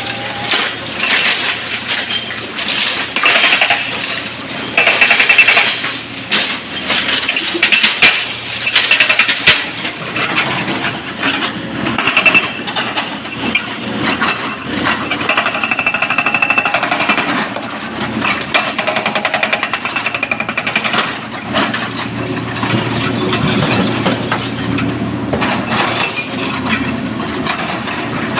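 Excavator working in stone: an irregular, loud clatter and scrape of rock and steel, with repeated sharp knocks, over the running diesel engine.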